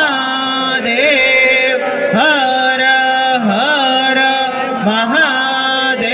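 A devotional Hindu chant sung in long, held notes, each new note entered with a pitch scoop about every second or so.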